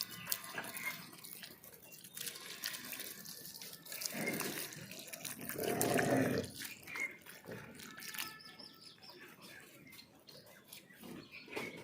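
Water splashing and dripping, with scattered small clicks and two louder swishes about four and six seconds in.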